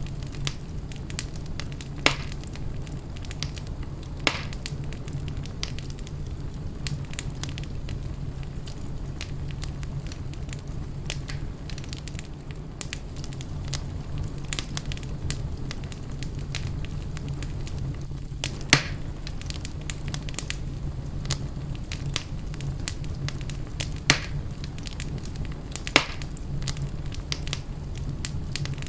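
Wood fire burning in a fireplace: a steady low rumble with constant light crackling and a few louder sharp pops.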